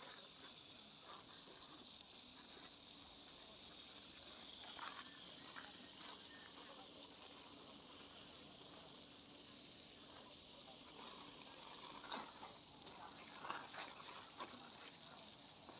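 Faint steady hiss of water spraying from a garden hose, with a few soft knocks near the end.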